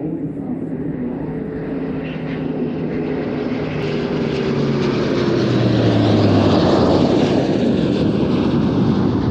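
German Air Force formation of an A400M turboprop transport with Eurofighter and Tornado jets flying past, the engine noise growing louder as it approaches. Its propeller and engine drone drops in pitch about halfway through as the formation passes.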